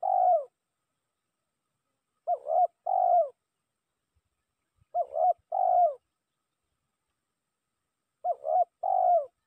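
Spotted dove cooing its call to rivals, as a decoy bird luring other doves. There are three full phrases about three seconds apart, each of two short coos and a longer, rolling coo, and the end of another phrase right at the start.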